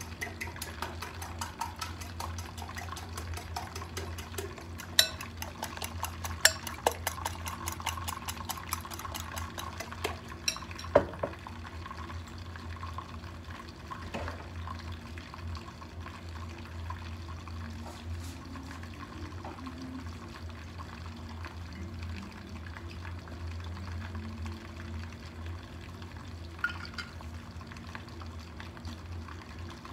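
Cooking oil poured from a bottle into an empty non-stick frying pan, over a steady low hum. A few sharp clicks come in the first eleven seconds and one more near the end.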